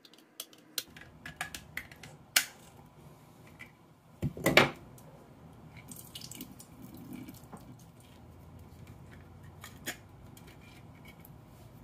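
Worn hand-held can opener clicking against the can's rim, then a loud metallic clatter about four and a half seconds in as it is set down in the sink. After that, liquid from the opened can trickles into the sink.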